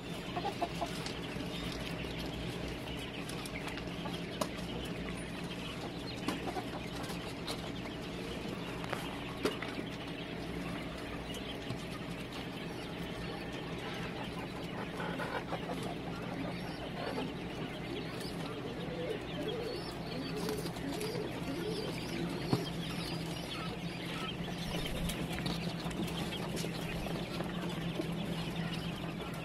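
A crowded flock of month-old quail chicks chirping and calling continuously, with a steady low hum underneath and a few sharp taps.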